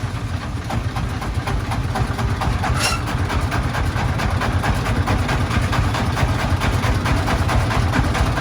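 Diesel engine running steadily at idle, with a fast, even chugging beat.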